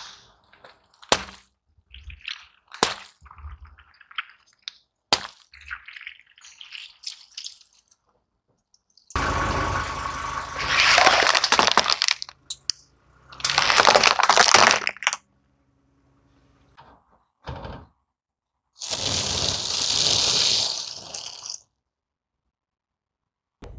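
A car tyre rolling over and crushing a run of objects one after another. First come scattered sharp cracks and pops, then long stretches of dense crackling and crunching as plastic toys and other items break under the wheel.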